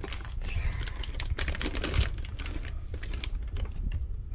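Broccoli florets tipped from a plastic bag into a glass casserole dish: a string of irregular light clicks and taps, with the bag crinkling.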